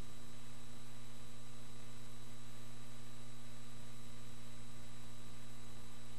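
Steady electrical hum over a constant hiss, with no other sound.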